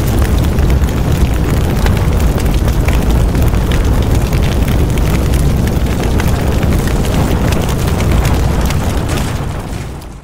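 A large fire burning: a loud, steady low rumble with dense crackling throughout, fading out near the end.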